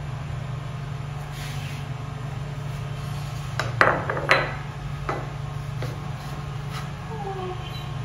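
A ceramic saucer set down on a countertop: two sharp clinks about half a second apart, near the middle, followed by a few lighter taps, over a steady low hum.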